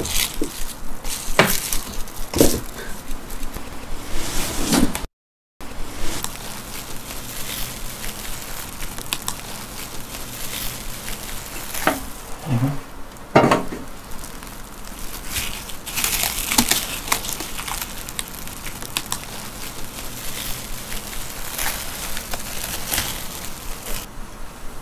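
Plastic cling film crinkling and rustling as hands press a chocolate truffle mixture into a film-lined metal loaf pan and then lift the wrapped block out. A few light knocks and taps are scattered through it.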